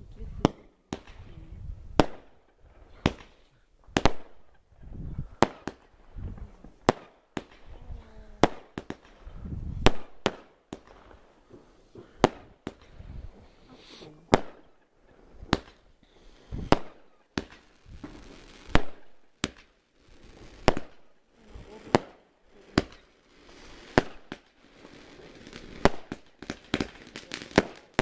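Fireworks going off in a long series of sharp, irregular bangs, roughly one or two a second, that come faster and closer together in the last few seconds.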